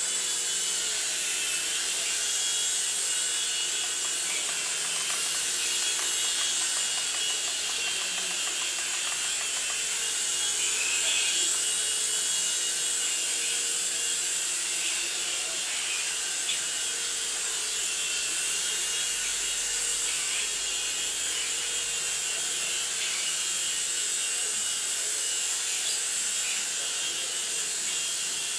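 Small radio-controlled toy helicopter in flight, its electric motors and rotor blades making a steady high-pitched whir.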